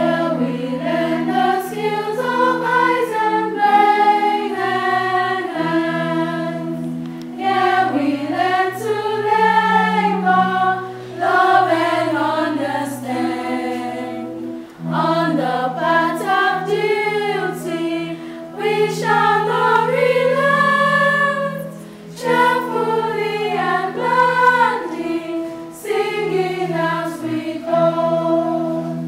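Girls' choir singing a school anthem, accompanied by held low notes that change in steps under the melody.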